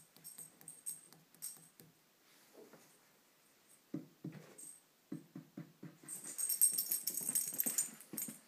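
Beaglier puppy making short, repeated vocal sounds in two runs, about four and about five seconds in. A louder hissing rustle follows near the end.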